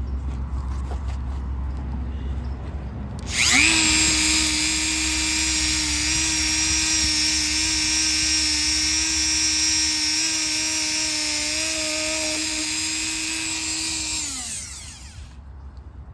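Dremel-type high-speed rotary tool switched on about three seconds in, running at a steady high-pitched whine for about eleven seconds, then switched off and winding down with a falling pitch.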